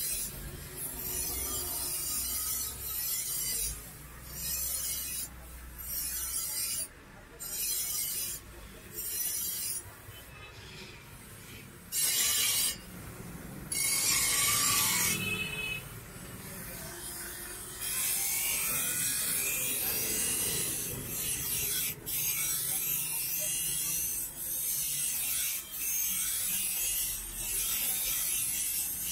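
Bench grinder's abrasive wheel grinding a steel butcher's knife blade: a hissing grind each time the blade is pressed to the wheel, in short strokes with pauses at first, then longer, almost unbroken grinding in the second half, over the hum of the grinder's motor.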